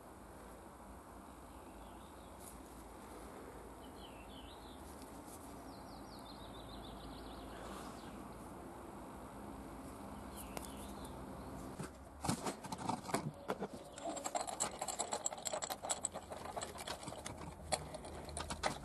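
Quiet background with a few faint high chirps, then, from about twelve seconds in, irregular metallic clicks and clinks of a spark plug wrench as a new spark plug is fitted and threaded into the front cylinder head of a Honda XL600V Transalp V-twin.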